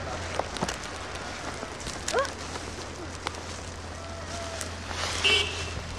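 Snowstorm outdoor ambience: a steady hiss and low hum with scattered crackles and clicks, and a few short distant calls, one rising about two seconds in and a louder one near the end.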